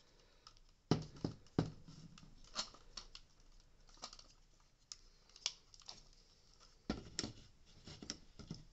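Plastic housing and circuit board of a disassembled Dyson V8 motor unit being handled: scattered clicks, taps and light scraping. There are a few sharper knocks about a second in and again around seven seconds in.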